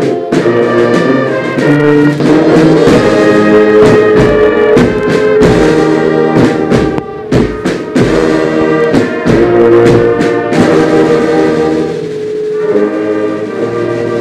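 Ceremonial brass band playing a slow piece in held brass chords, with a few sharp percussion strokes in the middle.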